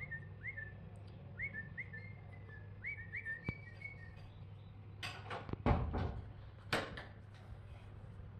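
A run of short, high whistled chirps, each sliding up and then held briefly, repeated about eight to ten times over the first four seconds. Then come a few loud scuffs and a thump between about five and seven seconds in, over a steady low hum.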